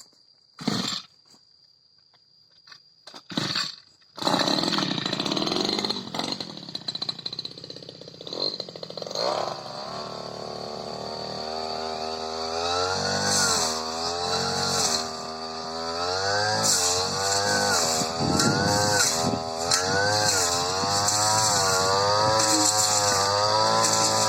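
Supra SPR328 two-stroke brush cutter engine: two short bursts, then it starts about four seconds in and runs, its engine speed rising and falling repeatedly from about ten seconds on.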